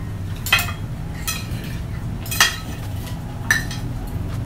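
Metal spoons and forks clinking and scraping against ceramic dinner plates while eating, with four sharp clinks.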